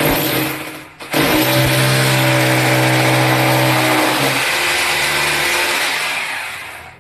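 Corded electric drill drilling into the tiled wall. It gives a short burst, stops briefly about a second in, then runs steadily for about six seconds before stopping near the end.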